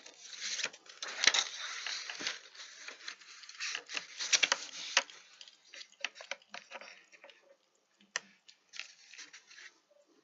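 Fidget spinner spinning down, giving a faint, irregular crackly ticking that thins out after about six seconds, with one sharper click, and dies away shortly before the end as the spinner comes to a stop.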